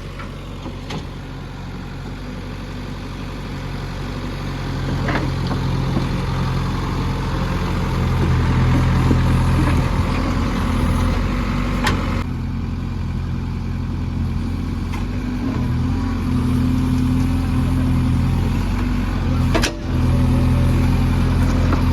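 JCB 3DX backhoe loader's diesel engine running under working load, rising in revs and loudness over the first several seconds and then holding steady. A couple of sharp knocks stand out, one about halfway through and one near the end.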